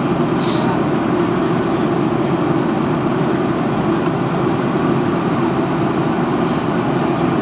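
Steady cabin noise inside a Boeing 737-700 in flight: the CFM56-7B jet engines and the air rushing past the fuselage, a deep, even rumble heard from a window seat.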